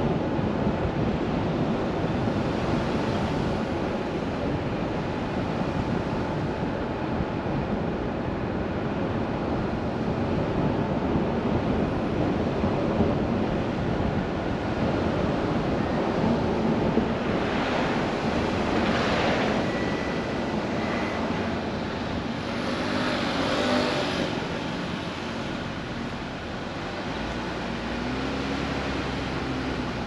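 A car driving on a paved road: steady tyre and road noise, with two vehicles swelling past, one a little past halfway and another a few seconds later. Near the end the noise eases as the car slows and a low hum comes through.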